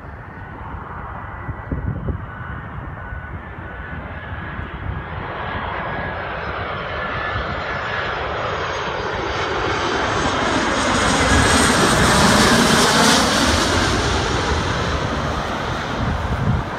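Boeing 717's two rear-mounted Rolls-Royce BR715 turbofans on final approach, passing low overhead: a rushing jet noise with a high whine that grows steadily louder, peaks about twelve seconds in, then begins to fade.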